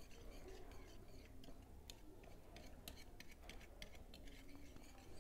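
Small wire whisk beating raw egg in a ceramic plate: faint, irregular clicks and taps of the wires against the plate.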